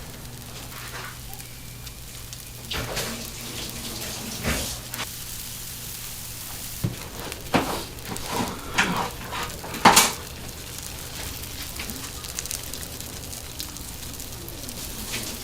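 Bungeoppang batter sizzling in hot fish-shaped irons as a steady hiss, broken by several sharp clacks. The loudest clack comes about ten seconds in.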